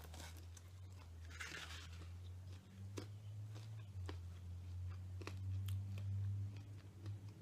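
Close-up chewing and crunching of Popeyes fried chicken, with scattered sharp clicks and one longer crisp crunch about a second and a half in, over a steady low hum.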